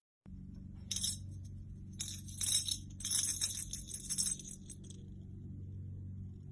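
Small bell or metal jingling in irregular clusters for a few seconds, over a steady low hum.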